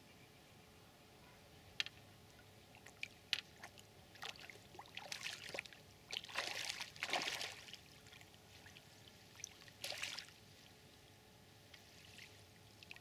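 A hooked barbel splashing at the water's surface in irregular bursts while it is played in on the rod, after two sharp clicks.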